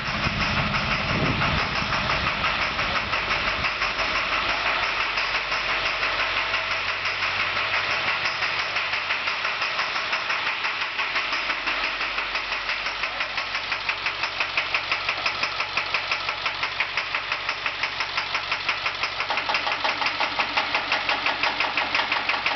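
International school bus diesel engine idling with a fast, rhythmic knock, the sign of a broken injector tip. The knocking grows sharper and more distinct about halfway through.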